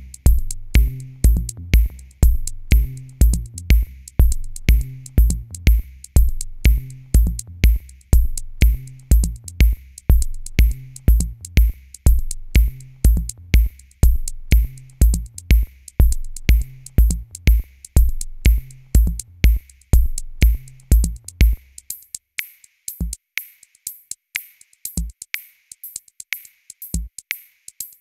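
Background electronic music with a steady drum-machine beat and heavy bass. About three-quarters of the way through, the bass and kick drop out, leaving mostly the ticking high percussion with an occasional low hit.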